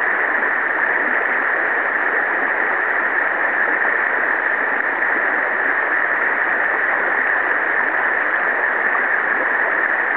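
Steady rushing of river water flowing over a shallow riffle.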